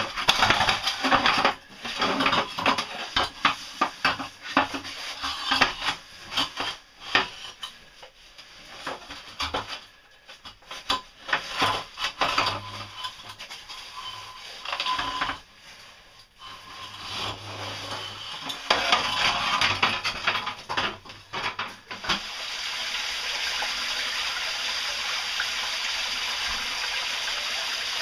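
Irregular clanking and knocking of a metal caving ladder as a caver climbs it, over the sound of running water. About 22 s in, a steady rush of falling water takes over: a cave stream running strongly after heavy rain.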